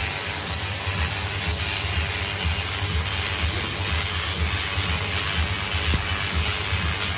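Tesla coil discharging, its arcs striking a hand-held rod: a steady crackling, hissing buzz.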